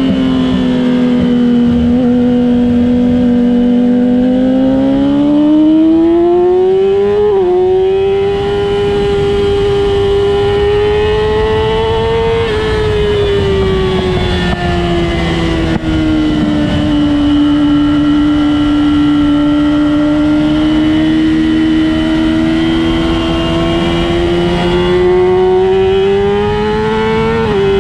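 Engine running hard while lapping a racetrack, heard onboard: its pitch climbs slowly under acceleration, drops sharply at an upshift about seven seconds in and again near the end, and sags for a few seconds midway as the throttle eases for a corner.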